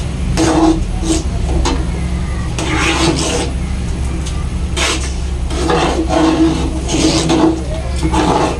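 Metal ladle scraping and stirring thick champorado in a large aluminium pot, a string of short scrapes, over a steady low rumble.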